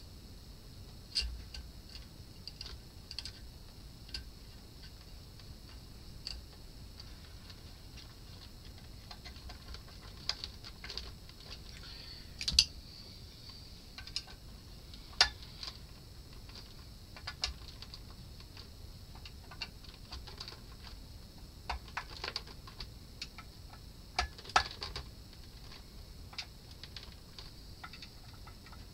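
Scattered, irregular small clicks and taps of metal parts being handled on an amplifier's output-stage heatsink fitted with metal-can power transistors, during replacement of the output transistors; a few taps are sharper, over a steady faint high hiss.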